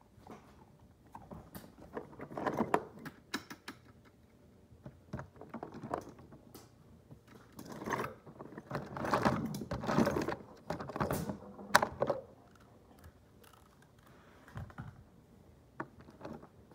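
Irregular clicks, taps and rustling of things being handled close to the microphone. The sound grows louder about two seconds in and again from about eight to twelve seconds in.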